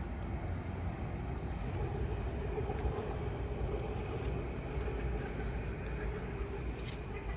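City street traffic: a low steady rumble, with a vehicle passing and giving a steady hum from about two seconds in until near the end.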